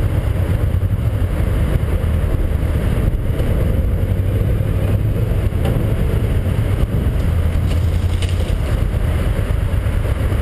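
1983 Yamaha Venture XVZ12TK's V4 engine running steadily as the touring bike rolls slowly along a rough dirt track, under a constant rush of riding noise.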